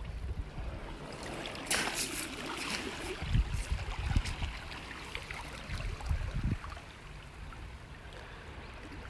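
Shallow seawater lapping and trickling over pebbles and rocks at the shoreline, with a brighter rush of water about two seconds in and a few low bumps from handling or wind on the microphone.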